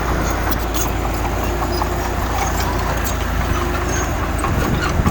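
Heavy diesel earthmoving machinery running steadily, with scattered short clicks and knocks over the engine sound.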